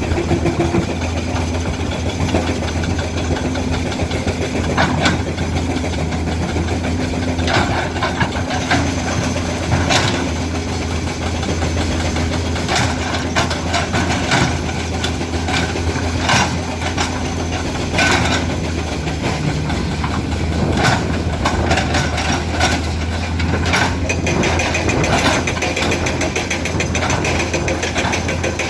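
Komatsu PC200 excavator's diesel engine running steadily, with irregular sharp clanks and knocks as the bucket scrapes and strikes broken rock.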